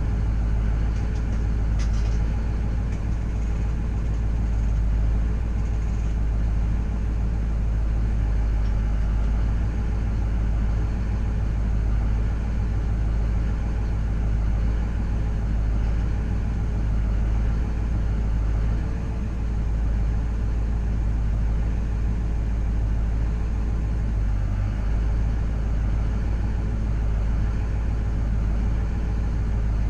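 Vehicle engine idling steadily, heard from inside the cab as a low, even rumble with a faint held whine.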